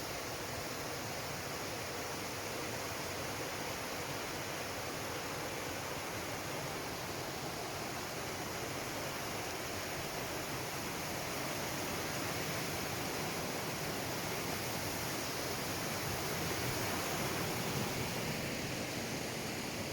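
Steady rush of a woodland waterfall, a continuous even noise that grows a little louder in the second half.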